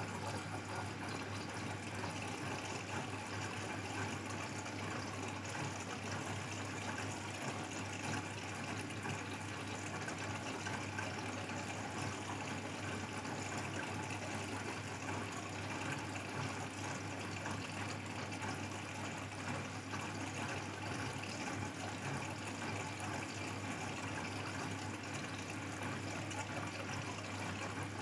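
Grundig Mini 14 washing machine with water rushing through it over a steady low hum.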